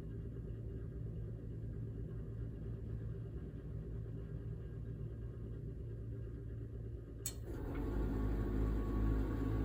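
Lennox Pulse 21 gas furnace starting up: its combustion-air inducer blower hums steadily, then about seven seconds in a sharp click marks ignition and the deep, rapid low rumble of pulse combustion starts and grows louder. The rumble comes from gas and air being fired by a spark many times a second in a cast-iron combustion chamber.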